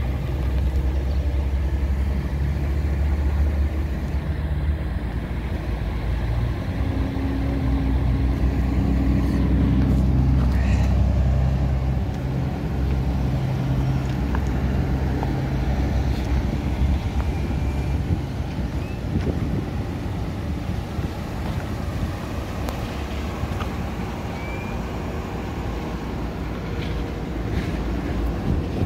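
Road traffic: vehicle engines running, a low rumble with shifting engine tones, loudest through the first dozen seconds and easing after.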